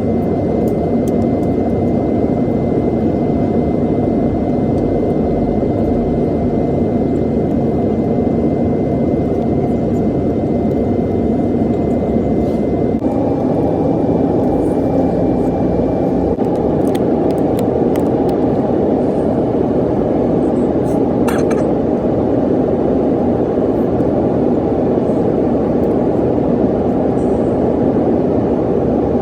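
Airbus A330 cabin noise: a loud, steady rumble of engines and airflow with a faint high tone, shifting slightly higher about halfway through.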